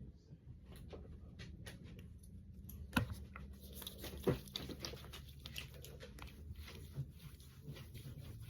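Fingertips patting and rubbing a milky toner into the face: a run of soft pats and taps, with two sharper clicks about three and four seconds in.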